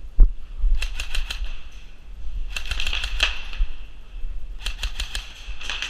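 Airsoft guns firing three short bursts of rapid sharp clicks, the sounds of the shots and BBs striking, over low handling or wind rumble.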